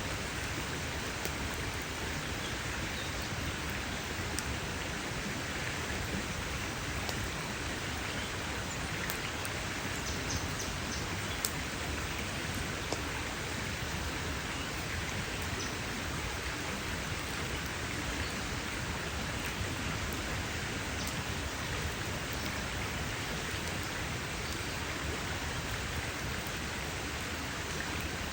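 Wood campfire crackling: a steady hiss with scattered sharp pops and snaps, the loudest about eleven and a half seconds in.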